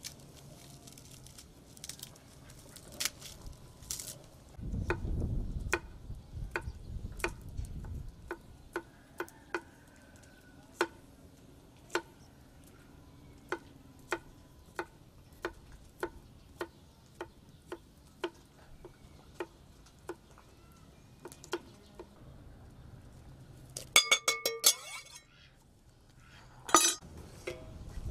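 Knife chopping garlic cloves on a wooden cutting board, one cut at a time, a little more than one stroke a second. Near the end come a few louder, ringing metallic clanks as a metal cooking pot is handled and set on an iron stand over the fire.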